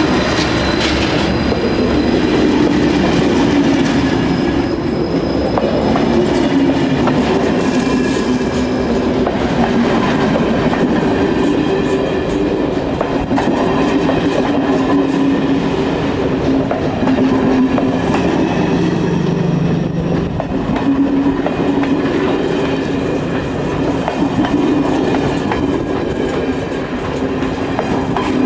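A passenger train of stainless-steel TEE coaches, hauled by a diesel locomotive, passing close by: a loud, steady rumble of wheels on rail with sustained squealing tones from the wheels.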